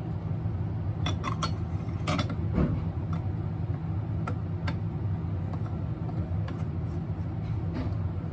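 Metal faucet adapter of a Philips on-tap water purifier being fitted and screwed onto a tap spout by hand: scattered small clicks and scrapes, most of them about one to three seconds in, over a steady low hum.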